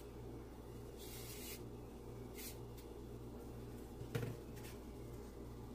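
A few short, soft rubs of a charcoal shading brush across drawing paper, with a small tap about four seconds in, over a steady low hum.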